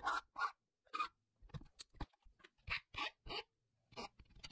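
A flat metal file rasping across the freshly sawn edge of thin plywood in short, uneven strokes, smoothing a cut box-joint tab.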